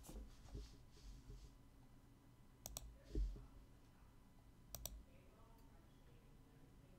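Near silence with room tone, broken by two quick double clicks, one about a third of the way in and one about two-thirds in, and a few soft low thumps.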